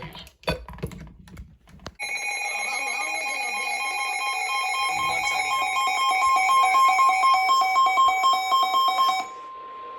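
Weather radio receivers sounding their alert alarm together, a loud rapid pulsing beep of several tones starting about two seconds in. This marks the activation of a new weather warning. The beeping cuts off near the end, leaving only the broadcast's steady single-tone warning alarm.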